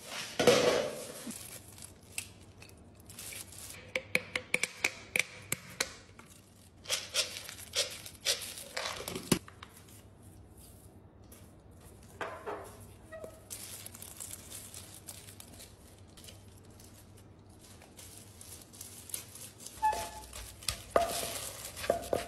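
Scattered sharp clicks, knocks and crinkles of things being handled in clusters, ending with a few dull strikes as a wooden pestle pounds shredded green papaya in a wooden mortar.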